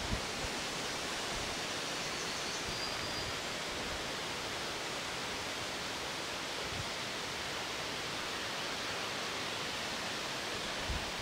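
Steady outdoor wind noise with leaves rustling in large trees.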